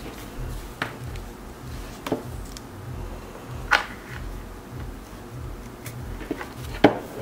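Handling sounds of a warranty card and booklet being taken out of and moved about a card presentation box by gloved hands: a few short sharp clicks and taps, the loudest near the end.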